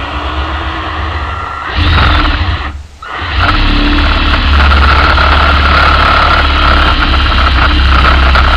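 Cordless drill boring a hole into a pine block, with a steady motor whine. It runs softer at first, gets louder about two seconds in, stops briefly about three seconds in, then runs loud and steady.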